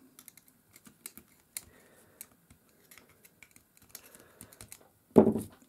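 Faint, irregular light clicks and taps of small metal parts: a ball bearing being worked back onto its axle beside the main pinion gear of a Daiwa BG 3500 spinning reel. The bearing is loose because it is not held by its clip.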